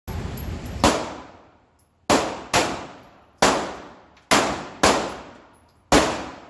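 Pistol shots fired one at a time, about eight of them at an uneven pace, from a 9mm handgun in an indoor range. Each crack rings out with a sharp, reverberant tail that dies away before the next shot.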